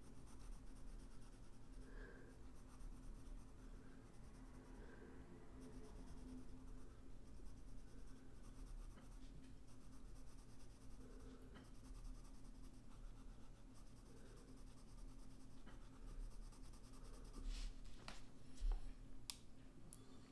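Pencil scratching lightly on paper as lines are drawn and shaded, faint. A few light clicks near the end.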